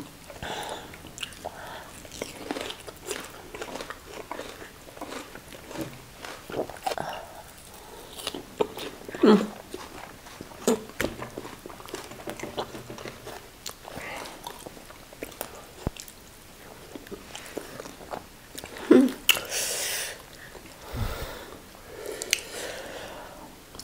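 Close-miked eating sounds of two people eating banku and fried tilapia with their fingers: chewing, lip smacks and wet mouth clicks, with fingers pulling at the fish. There are a couple of louder bursts about nine and nineteen seconds in.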